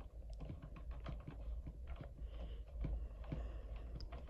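Faint, irregular small clicks and taps of hands handling a PVC pipe-fitting assembly with metal eye bolts.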